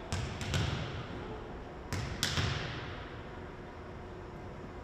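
A volleyball bounced on a hardwood gym floor, making a few sharp thuds in the first half second and two more about two seconds in, each with a short echo in the hall.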